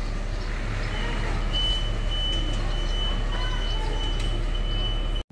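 Street sound dominated by a steady low hum of a vehicle engine running nearby, with a steady high-pitched whine that comes in about a second in; faint voices in the background. It all cuts off suddenly near the end.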